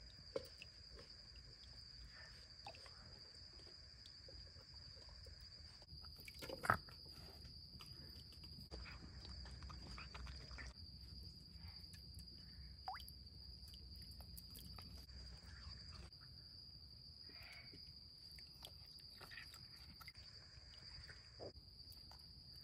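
Faint, steady, high-pitched trill of night insects, with scattered soft clicks and knocks as a raccoon paws at grapes hanging from a metal chain. There is one sharper knock about seven seconds in and another about thirteen seconds in.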